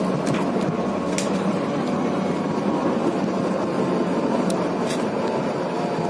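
Steady running noise inside a passenger train carriage, a low even rumble, with a few short clicks scattered through it.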